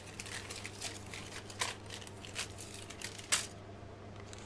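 A clear plastic bag crinkling and white plastic model-kit parts trees (sprues) clicking as they are handled and drawn out of the bag, in short irregular crackles, the sharpest about three seconds in.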